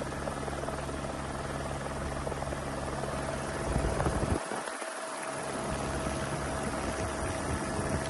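Helicopter engine and rotor running steadily, heard from on board: a constant low drone with a steady higher whine over a wash of noise, the low drone dropping out for a moment about four and a half seconds in.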